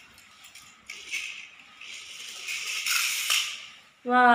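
A small toy car rolling across a tiled floor, its little wheels rattling, growing louder over a couple of seconds, with a sharp click near the end.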